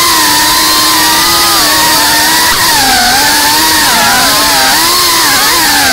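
GEPRC Cinelog 35 FPV quadcopter's motors and propellers whining over a steady hiss, the pitch rising and falling as the throttle changes in flight.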